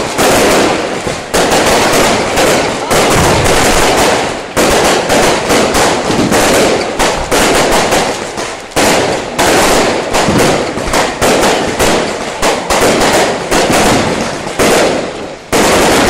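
Long strings of firecrackers going off in a loud, rapid, continuous crackle of bangs.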